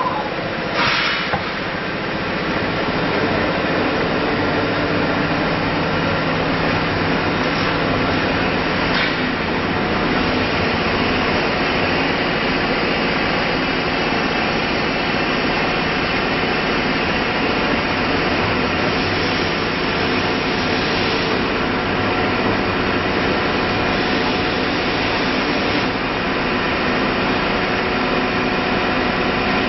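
CNC router running steadily, its spindle whine mixed with the noise of the machine at work, with a brief click about a second in and again about nine seconds in.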